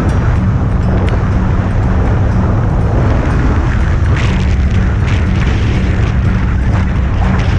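Rally vehicle's engine running hard, a loud, steady rumble.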